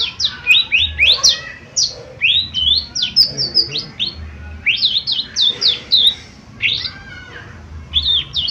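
Cucak ijo mini (a small leafbird) singing a fast, chattering song of sharp whistled notes, mostly sliding down in pitch, several a second, with a brief pause near the end.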